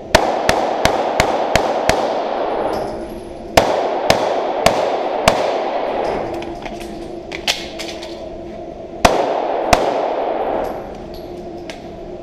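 Pistol shots fired in fast strings on an IDPA stage, each with a reverberant echo. About seven shots come in quick succession in the first two seconds, then four more about half a second apart, some fainter reports, and two more shots about nine seconds in.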